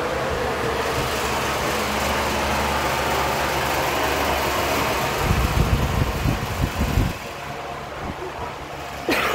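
Steady low mechanical hum of running machinery. It is broken by about two seconds of low rumbling thumps past the middle and a short sharp sound just before the end.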